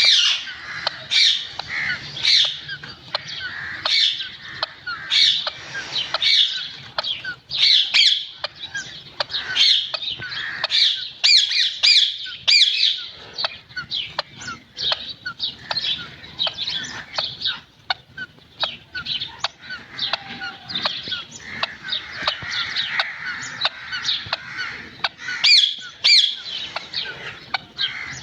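Green parrots calling: a dense stream of short, high-pitched squawks and chirps, several a second, with brief lulls.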